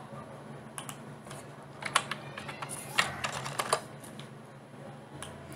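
Scattered keystrokes on a computer keyboard, a few sharp clicks at uneven intervals, in small groups through the middle and once more near the end, over a faint steady hum.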